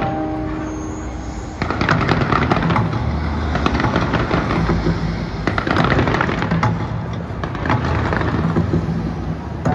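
Fireworks going off in quick volleys of bangs and crackles, with a denser, louder run starting about one and a half seconds in. Music plays underneath.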